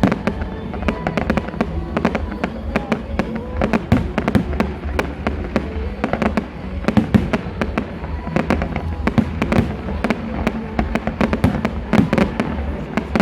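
Fireworks display: a dense, irregular run of sharp bangs and crackles, several a second, over a low rumble, with music playing underneath.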